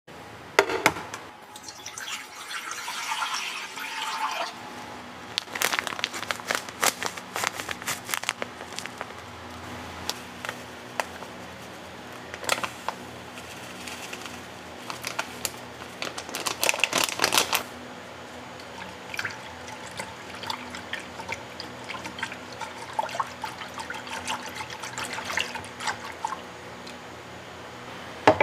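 Kitchen preparation sounds: liquid pouring and splashing into containers, with bursts of quick clicks and taps of utensils against a pot.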